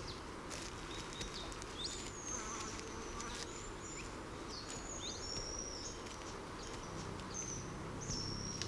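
Grassland ambience: many short, high bird chirps and whistles scattered throughout, over a steady faint hiss of insects.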